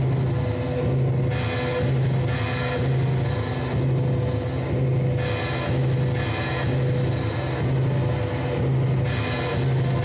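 Live band music from electric guitar and keyboard or synthesizer: a dense, droning piece with a low pulse about once a second.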